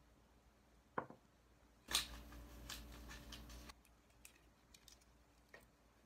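Small objects being handled on a tabletop: a sharp click about a second in, then nearly two seconds of rustling and scraping, then a few light taps.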